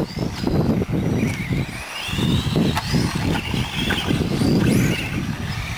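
Radio-controlled racing cars' motors whining, rising and falling in pitch as they speed up and slow down around the track, over a gusty rumble of wind on the microphone.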